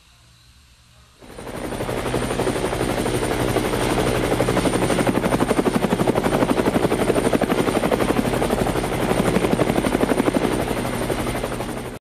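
DJI Spark quadcopter's motors starting about a second in and running with the drone resting on the ground: a steady propeller buzz that pulses rapidly.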